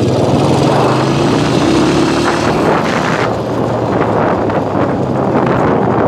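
Honda motorcycle engine running as the bike rides along a dirt track, its note rising briefly in the first couple of seconds, with wind buffeting the microphone.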